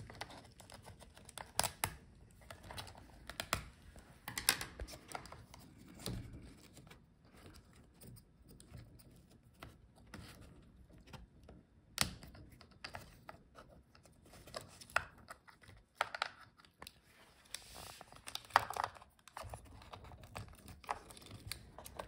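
Scattered small clicks, scrapes and crinkles of fingers working a laptop's speaker wires and plastic parts loose from the chassis, with a sharper click about twelve seconds in.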